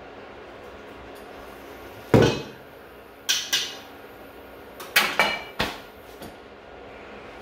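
Kitchen clatter: about six sharp knocks and clanks as cookware and utensils are handled and set down. The loudest knock comes about two seconds in, followed by a pair a second later and a quick cluster of three near the end, some with a brief metallic ring.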